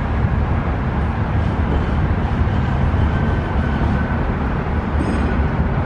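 Steady low rumble with a hiss over it: continuous outdoor background noise with no distinct events.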